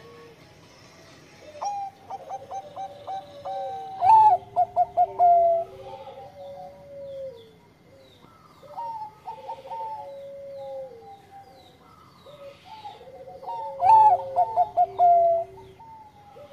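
Zebra dove (perkutut, Bangkok song type) singing its cooing song: two loud phrases of rapid staccato notes running into a longer coo, about four and fourteen seconds in, with softer coos between. Faint chirps of small birds are in the background.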